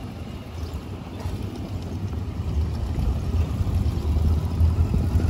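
Yamaha XJ900 inline-four motorcycle running on a ride, heard mostly as a low rumble mixed with wind buffeting on the microphone, growing steadily louder.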